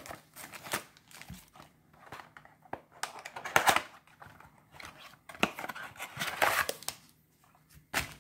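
Clear plastic wrapping and foil trading-card booster packs crinkling and rustling as they are handled and pulled from a cardboard sleeve, in irregular spells with short pauses between, and a sharp click near the end.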